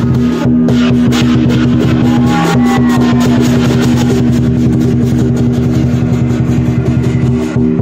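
Lion dance percussion: a large Chinese drum with cymbals and gong beaten in a fast, continuous rhythm, loud, over a steady ringing of the metal.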